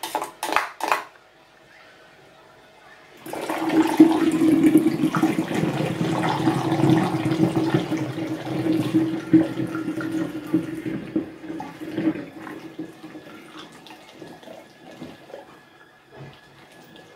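A spoon taps and scrapes a few times against a metal strainer in the first second. From about three seconds in, watermelon juice is poured into a glass bottle, a steady liquid pour lasting about nine seconds that then tapers off as the bottle fills.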